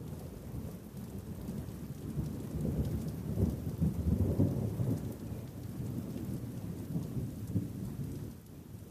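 Rolling thunder during a rainstorm: a low rumble that swells a few seconds in, peaks, then slowly fades, over steady rain.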